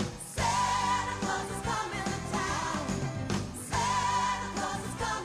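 Background music: a song with a sung melody over steady held instrumental notes.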